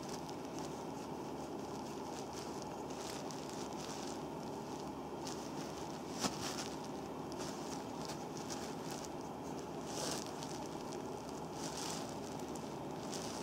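Soft rubbing and rustling of hands and a wooden massage stick working over the sole of a bare foot on a towel, over a steady background hiss. A single sharp click comes about six seconds in.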